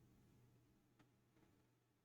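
Near silence: faint room tone with a low hum and a couple of tiny clicks.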